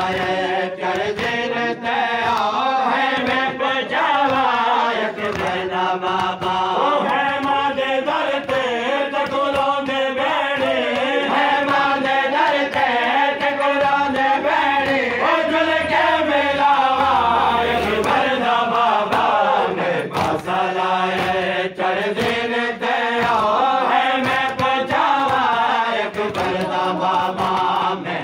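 Men's voices chanting a Muharram lament (nauha) in a slow, wavering melody without pause, with repeated sharp hand strikes of matam (chest-beating) over it.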